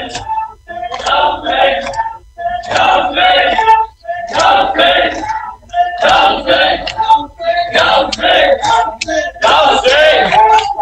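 Men chanting an Ashura mourning chant together in short phrases, one roughly every one and a half seconds with brief pauses between.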